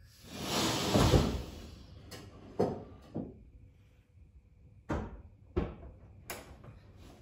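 Race-car air jacks venting their gas with a loud hiss as they release, the ute dropping onto its suspension with a heavy thud about a second in. Several sharp metallic clunks follow over the next few seconds as the car settles.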